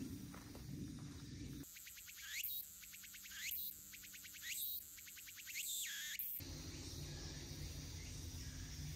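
An animal call repeated four times about a second apart, each a rapid trill that ends in a sharp falling note. A low, steady outdoor noise comes before and after the calls.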